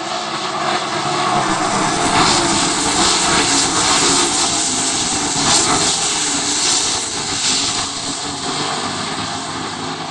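410 sprint cars' methanol-burning V8 engines at full throttle as the cars race past on the dirt oval. The roar swells as they come by close, is loudest through the middle, and eases slightly near the end.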